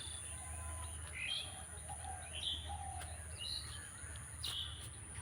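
Short bird chirps, one every second or so, over a steady low hum.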